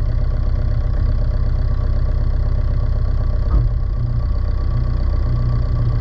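Car engine idling steadily just after a cold winter start, a low, even rumble with one brief knock about three and a half seconds in.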